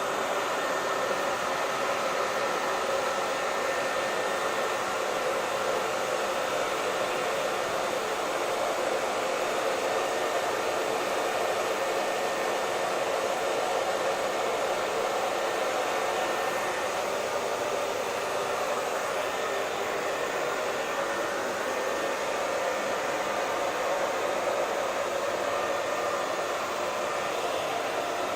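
Hair dryer running steadily: an even blowing hiss with a faint steady whine, unchanging throughout.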